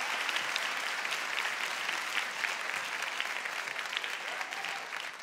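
Audience applauding, a dense patter of hand claps that slowly fades.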